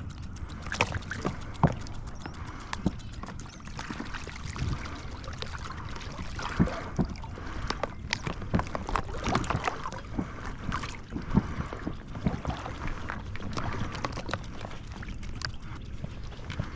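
Shallow marsh water sloshing and splashing, with many small irregular knocks and clicks, as decoys on a Motion Ducks rig are worked through the water.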